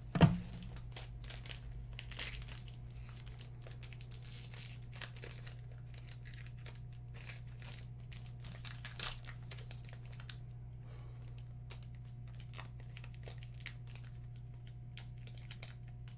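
Trading card packaging being torn open and crinkled, in many short scattered rustles and crackles.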